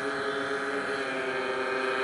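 Four O.S. 65AX two-stroke glow engines running at low throttle on a large radio-controlled model airplane as it taxis. Their slightly different pitches blend into one steady, many-toned drone.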